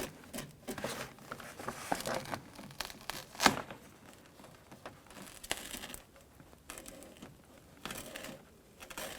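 Plastic door water shield crinkling and rustling as it is peeled away and handled, with irregular crackles and one sharp snap about three and a half seconds in.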